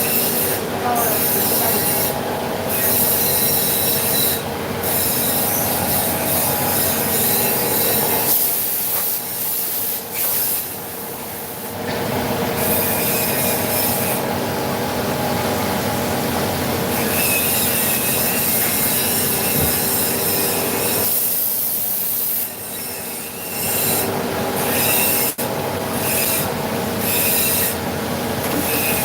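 Vertical machining centre (CNC mill) cutting metal: a steady scraping, squealing cutting sound with several held tones, and a high hiss that cuts in and out. It eases off briefly about a third of the way in and again near three-quarters through.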